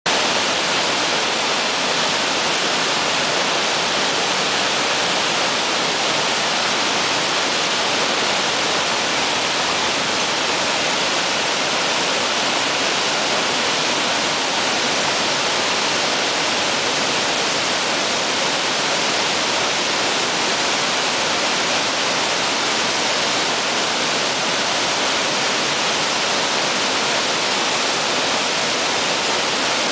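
A tall waterfall, about 35 m high, pouring steadily: loud, even rushing water that does not change.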